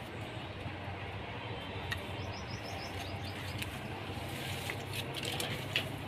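A small bird chirping outdoors: a quick run of short, high chirps starting about two seconds in, over a steady low hum. A couple of sharp clicks stand out, the loudest near the end.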